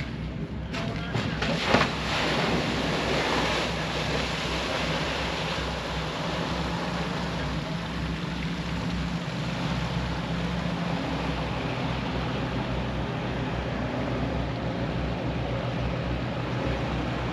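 An RNLI lifeboat launching down its slipway hits the water with a loud splash about two seconds in, followed by a few seconds of rushing spray. Its engines then run steadily as it motors across the harbour, the note shifting a little about ten seconds in.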